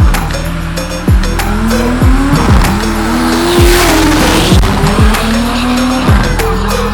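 Drag-racing cars with engines running and tyres squealing, mixed with music. In the music, deep bass notes slide down in pitch about once a second.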